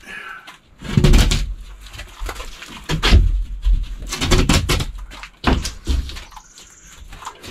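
A large OSB sheathing panel bumping and scraping against the wood stud framing and rafters as it is lifted and shimmied up into place, with several separate thumps.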